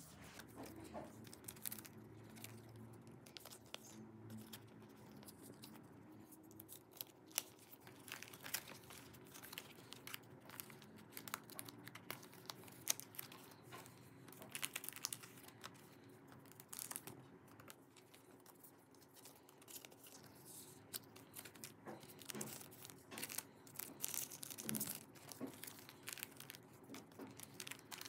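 Thin clear plastic crinkling and rustling in quick, scattered bursts as photocards are slid into plastic sleeves and the pockets of a photocard binder, with small clicks and scrapes of card against plastic.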